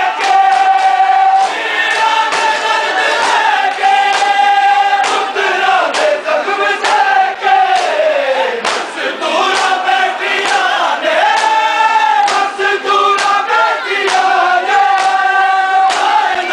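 A crowd of men chanting a nauha, a Shia lament, in unison on long held notes, over a steady rhythm of sharp slaps as the mourners beat their chests in matam.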